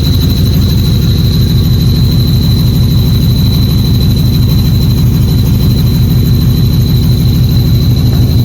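Ford Mustang GT's 5.0 V8 running steadily at idle, with a thin, steady high-pitched whine over the engine's rumble: the howling noise the owner takes for a failing clutch slave cylinder.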